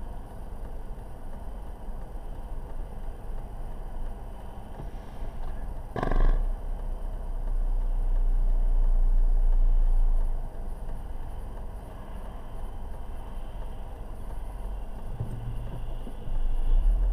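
Low, steady rumble of a car idling in a queue, heard from inside the cabin through a dashcam. A short thump comes about six seconds in, and the rumble then grows louder for about four seconds before settling back.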